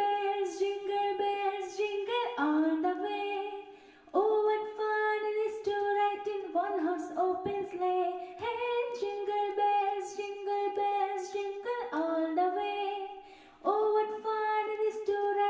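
A woman singing solo and unaccompanied, in phrases of held notes with a slight vibrato, pausing briefly for breath about 2 s and 4 s in and again near the end.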